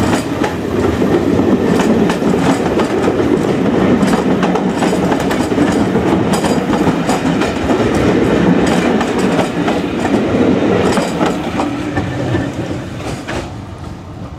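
A rake of railway passenger coaches rolling past close by, their wheels clattering over the rail joints in a steady clickety-clack, fading away near the end as the last coach goes by.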